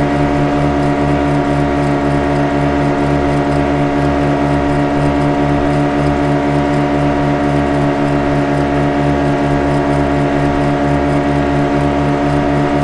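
Boat engine running at a constant speed: a steady drone with a fast, even throb, unchanging throughout.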